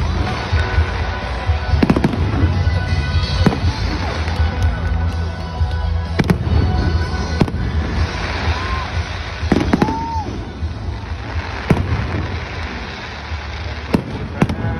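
Aerial fireworks shells bursting, with about six sharp bangs spread through and a steady crackle of glittering stars between them, over music played through the stadium speakers.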